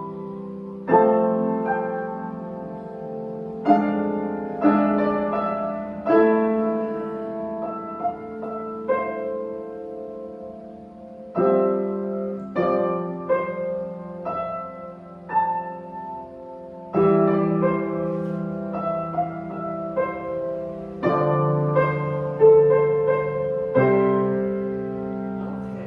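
Solo piano playing a slow, gentle arrangement, with chords struck about every second or two and left to ring and fade under a melody.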